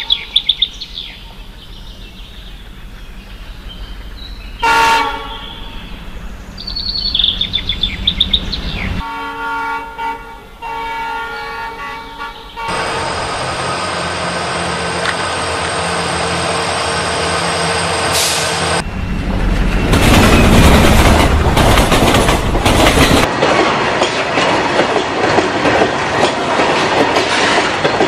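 Indian Railways diesel-hauled train: the horn sounds in the first half, then the train runs past close by with a steady loud rumble and wheel noise that grows louder about two-thirds of the way in.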